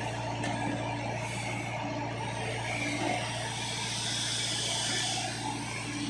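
Tata Hitachi EX70 excavator's diesel engine running steadily while the boom and bucket swing.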